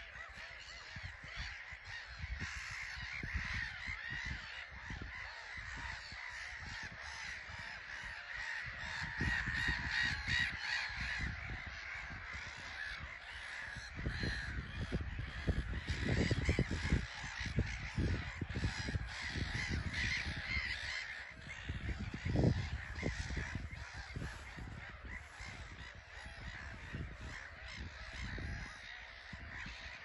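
Black-headed gull colony calling: many harsh, overlapping calls with no break.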